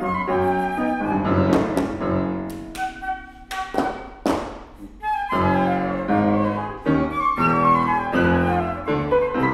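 Concert flute and grand piano playing a contemporary classical piece together, with a string of sharp, noisy accents in the middle of the passage.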